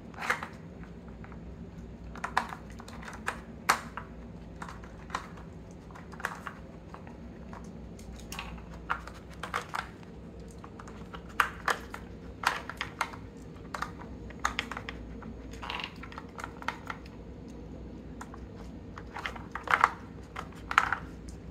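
Plastic dog puzzle feeder being worked by a dog's nose: irregular light clicks and clacks of its flip-up lids and sliding blocks against the plastic tray, with a cluster of louder knocks near the end. A faint steady hum runs underneath.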